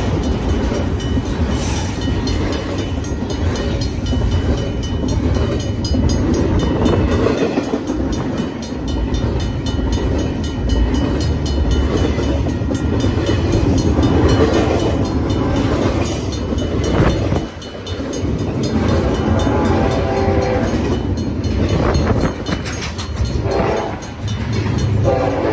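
Double-stack container freight train rolling past at close range: a loud, steady rumble and rattle of steel wheels on the rails, with many sharp clicks.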